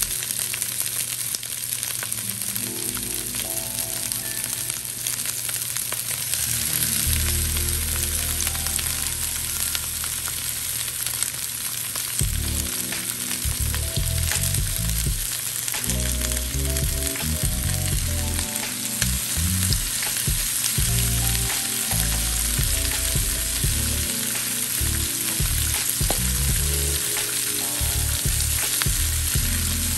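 Sliced onions and bell peppers sizzling as they fry in a nonstick skillet, a steady hiss throughout. Background music with low held notes plays underneath.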